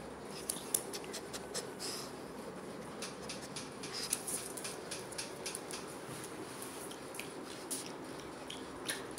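A pug moving about and nuzzling a hand on a tile floor, making many soft, irregular small clicks and scuffs.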